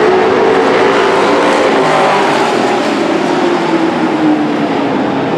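Race trucks' engines running hard on a dirt oval, several engine notes overlapping and sliding slowly lower in pitch as the trucks pass by.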